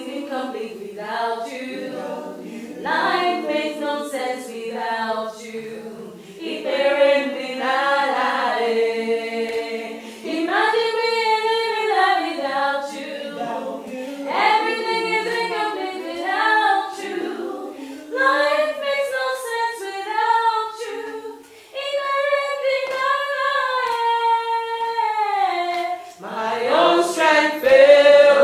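A small group of men and women singing a worship song a cappella, with no instruments. The voices move together in sung phrases with held notes and short breaks between lines.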